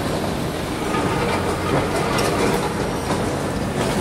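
N700 shinkansen running past on the tracks below, a steady rushing rail noise, with a few short sharp knocks from the demolition site.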